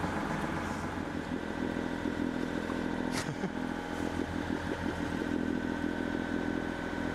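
Sailboat's inboard engine running steadily, with a single sharp click about three seconds in.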